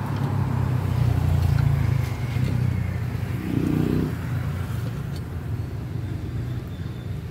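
A low, steady motor-like rumble that swells over the first two seconds and then eases off.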